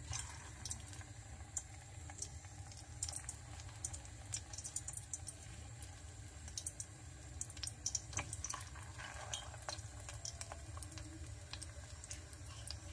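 Sesame-coated glutinous rice balls deep-frying in hot oil in a steel pot: quiet, irregular crackling and bubbling.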